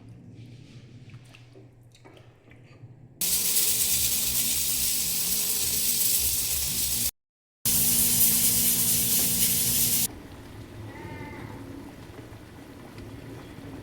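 Water running hard from a kitchen tap, a steady loud hiss in two stretches broken by a short cut, dropping to a quieter background about ten seconds in.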